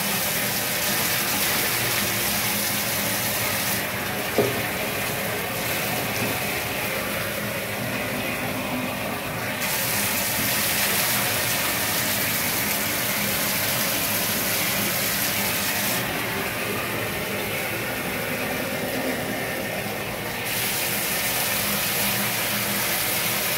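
Bathtub tap running into a shallow tub of water while a dog is rinsed, with water poured over it from a plastic pitcher; the hissing splash fades and comes back several times. One sharp knock about four seconds in.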